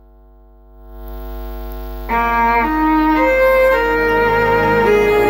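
Music played on sustained-tone instruments: a held chord swells up over the first two seconds, then a slow melody of long held notes enters about two seconds in, over a low steady hum.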